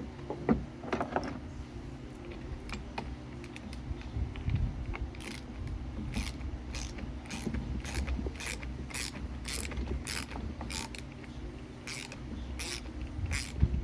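Ratchet wrench clicking as it is worked back and forth to loosen a stubborn bolt on a toy backhoe, in quick regular strokes about two a second from about five seconds in, over a steady low hum.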